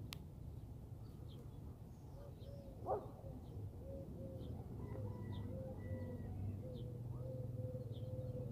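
Outdoor ambience: a steady low background rumble with small birds chirping about once a second. A faint wavering tone comes in about two seconds in, and a short rising sound, the loudest moment, comes about three seconds in.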